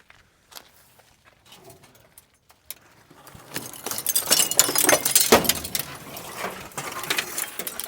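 Clinking and crunching of charred scrap metal and broken glass being handled inside a burnt-out car while its wiring is stripped. At first only a few scattered clicks, then a dense clatter from about three and a half seconds in until near the end.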